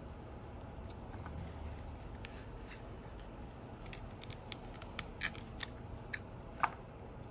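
Small sharp clicks and snaps of hand tools prying at an iPhone 11's display, scattered and coming more often in the second half, the loudest a little before the end.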